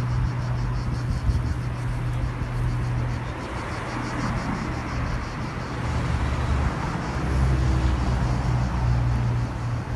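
Steady outdoor background noise: a constant low rumble under an even hiss, swelling slightly near the end.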